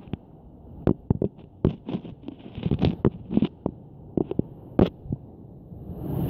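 Muffled underwater knocks and clicks in a rocky tide pool, about a dozen at irregular spacing, such as stones and pebbles knocking together in the surge. Near the end the microphone comes out of the water and a steady hiss of surf and wind rises.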